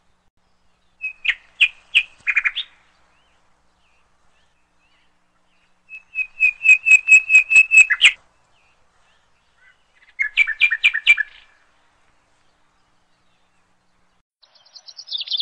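A small bird singing in short bursts of quick, high chirps: a few notes about a second in, a run of about eight rapid notes from around six seconds, another burst near ten seconds, and a new run starting near the end.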